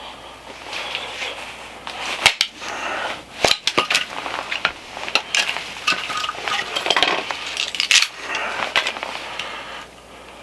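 Aspen firewood being split and handled: irregular wooden knocks and clattering, with a few sharp, louder impacts.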